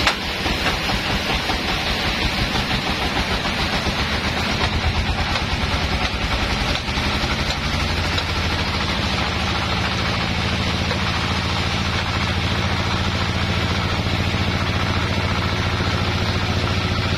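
Band sawmill machinery running: a steady motor drone with hiss. About eight seconds in, the low hum turns steadier and stronger as the log carriage moves.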